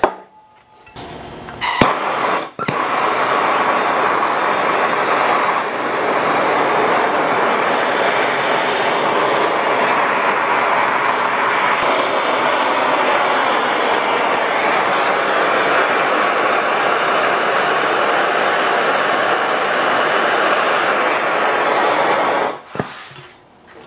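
MAPP gas hand torch burning with a steady hissing flame while it heats an aluminum tube joint for brazing. The flame starts about two seconds in and cuts off near the end.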